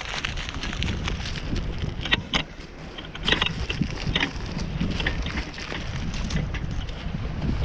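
Wind buffeting the microphone in a steady low rumble, with a few short crinkling rustles about two to four seconds in.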